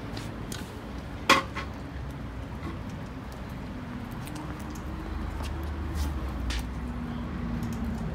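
A sharp metallic clink about a second in, then scattered faint clicks over a steady low rumble.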